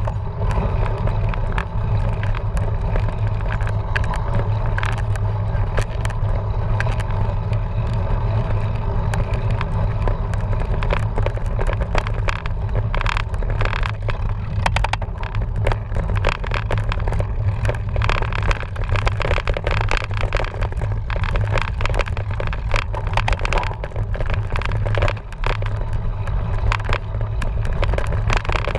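Cyclocross bike being ridden over rough trail: a steady low rumble of tyres and wind with many sharp rattles and clacks as the bike bounces over bumps, thickest in the middle.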